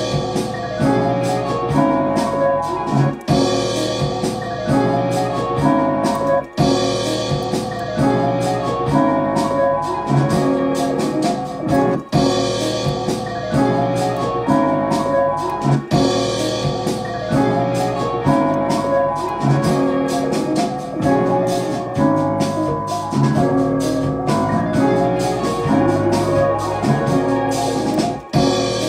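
A beat in progress playing back from music production software: a piano-like keyboard melody over drums.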